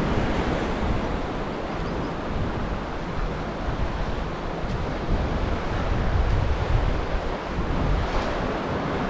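Wind buffeting the microphone in uneven gusts, over the steady wash of choppy surf.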